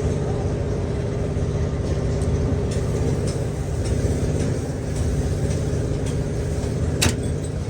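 Steady low machine hum with a few light ticks and one sharp click near the end.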